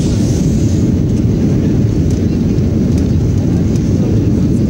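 Jet airliner cabin noise in flight: a steady, loud low rumble of engines and airflow heard inside the passenger cabin, with a few faint ticks.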